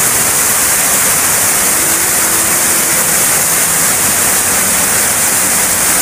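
Small waterfall pouring from a cave mouth down a rock face: a steady, loud rush of falling water.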